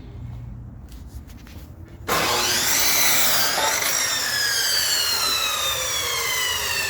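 Electric power saw cutting a wooden 2x4. After about two seconds of low hum it starts abruptly and loudly, its whine rising for a moment, then sinking slowly in pitch through the rest of the cut.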